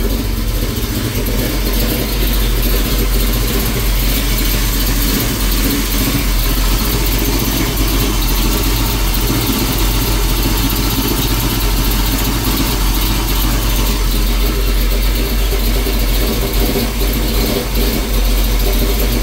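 Pickup truck's V8 engine idling steadily soon after being started, having sat for about a month.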